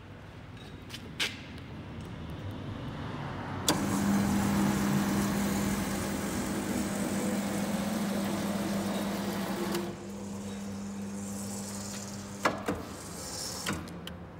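Edwards Pearson guillotine's motorised backgauge drive starting with a click about four seconds in and running with a steady hum for about six seconds. It then continues more quietly until a couple of sharp clicks near the end. This is the backgauge traversing from 300 mm to 500 mm.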